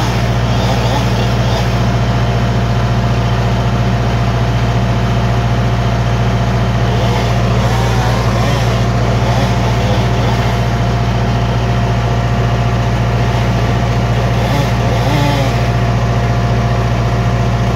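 An engine running steadily at one constant speed, a low, even drone with no revving.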